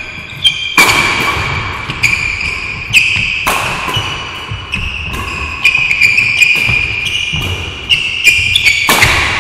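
Badminton rally: a string of sharp racket strikes on the shuttlecock, about one a second, each ringing on in the hall. Between the strikes, shoes squeak briefly on the court floor.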